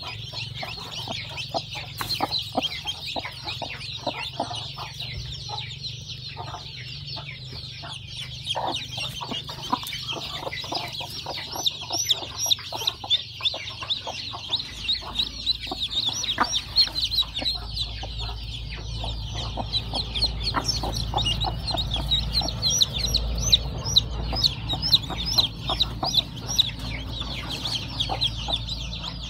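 A brood of newly hatched chicks peeping nonstop, many rapid high chirps overlapping, with the broody hen clucking low beneath them.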